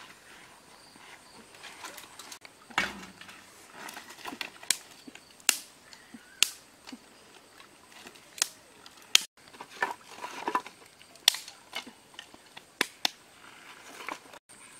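A series of about ten sharp knocks and snaps, irregularly spaced, one every second or so.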